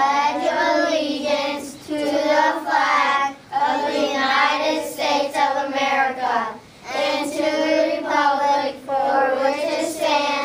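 A class of second graders reciting the Pledge of Allegiance in unison, phrase by phrase with short breaths between phrases.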